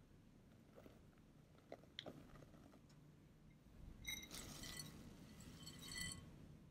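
Grated parmesan cheese being poured into a glass mixing bowl: a faint, dry rustling patter for about two seconds in the second half, with a light ring from the glass. A few faint ticks come earlier.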